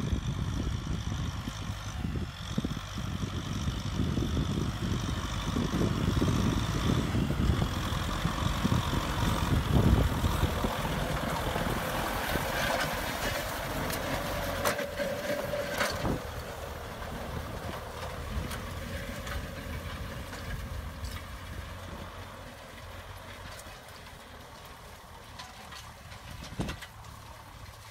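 Kubota M6040SU tractor's diesel engine running under load as it pulls a disc plough through dry field soil, growing quieter over the last few seconds.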